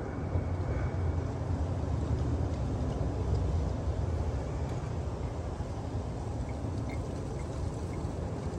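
Engine coolant being poured from a jug into the coolant reservoir, topping it up to full, over a steady low rumble.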